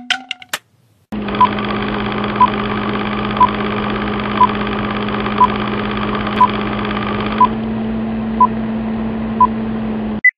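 Film-leader countdown sound effect: a steady film-projector whir with a short beep once a second, nine beeps in all, then one brief higher beep before it cuts off suddenly. A few short clicks come just before the whir starts.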